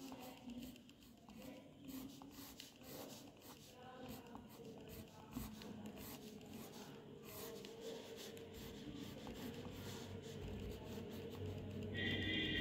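Wax crayon rubbing on paper in quick back-and-forth colouring strokes, faint and scratchy. Near the end a few steady tones come in over it.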